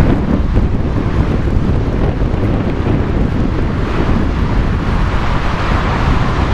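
Strong wind buffeting the microphone over the steady jet noise of a Boeing 747-400's four engines as the airliner rolls out after touchdown.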